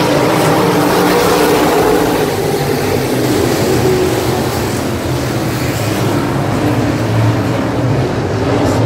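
Field of Super Stock dirt-track race cars' engines running around the oval, a loud steady drone from several cars at once.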